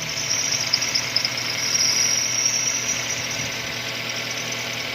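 Toyota Avanza's 3SZ 1.5-litre four-cylinder petrol engine running steadily at idle.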